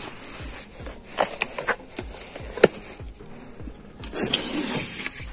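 Old hardbound books being handled on a metal library shelf: a few light knocks as a volume is tipped out and set back, the sharpest about two and a half seconds in. Near the end a hand brushes along the book spines with a rustling scrape.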